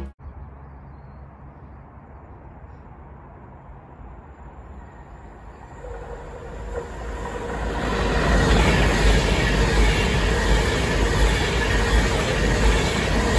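Passenger train approaching and passing at speed: a faint low rumble at first, growing louder from about six seconds in into a steady rush of wheels on rails.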